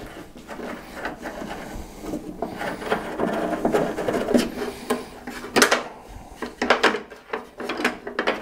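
Screwdriver undoing the screw that holds the support cable on a 1988 Ford Bronco tailgate: scraping and rubbing of metal parts, with a run of sharp clicks and clinks in the second half.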